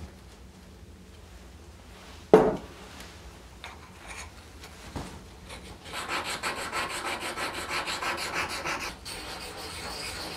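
Ice auger blade being sharpened on a whetstone: rapid, even back-and-forth strokes of steel rubbing on stone, starting about six seconds in. Before that, a single sharp knock on the wooden bench a little over two seconds in.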